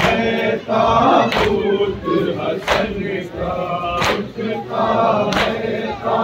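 A crowd of men chanting a mourning lament (noha) together. Their hand strikes on the chest (matam) land in unison as a loud slap about every 1.3 seconds, four times.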